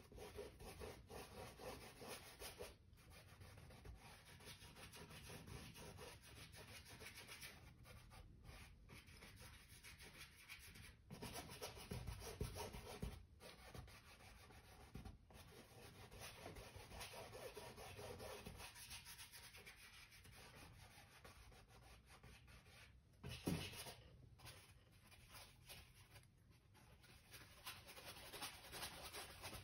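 A paintbrush rubbing and scrubbing paint onto a stretched canvas in repeated faint strokes, with one short knock about two-thirds of the way through.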